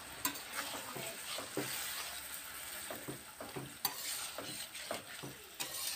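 Long metal spatula stirring bottle gourd greens and dried fish in a metal pan, scraping and clicking against the pan again and again, over a steady sizzle of the wet curry cooking.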